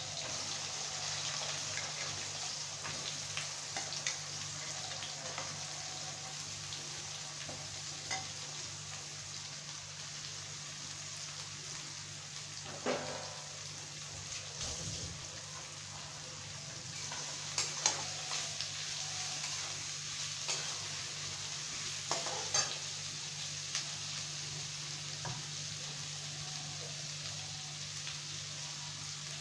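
Sliced onions sizzling as they fry in hot oil in an aluminium kadai. A steel spatula now and then scrapes and knocks against the pan.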